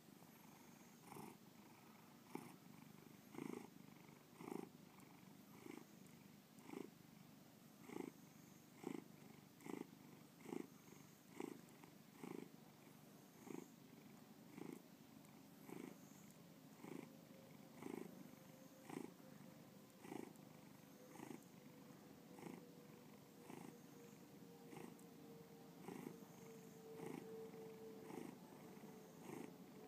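Ginger-and-white domestic cat purring softly, the purr swelling in an even rhythm about once a second as it breathes in and out.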